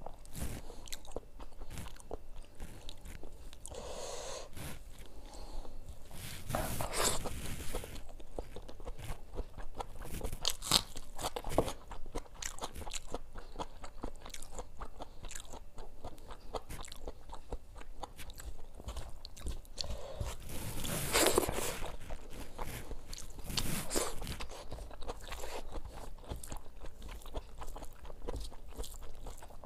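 Close-miked eating by hand: chewing and crunching of fried food, mixed with the wet squish of rice and curry being worked by the fingers, with a few louder crunchy moments.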